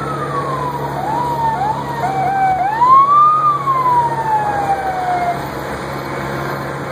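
Emergency vehicle siren gliding down in pitch, then a few short rising whoops, then one rise and a long falling wail that stops about five seconds in. A steady low hum runs beneath it.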